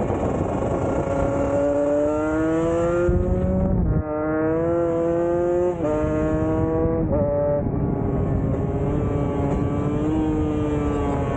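Motor vehicle engine accelerating through the gears. Its pitch climbs, then drops suddenly about four and six seconds in as it shifts up, and runs steadier after that.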